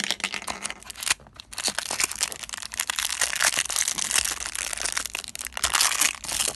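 Crinkly plastic wrap from an L.O.L. Surprise ball's clothes layer being torn and unwrapped by hand. Dense crackling and crinkling, with a short lull about a second in.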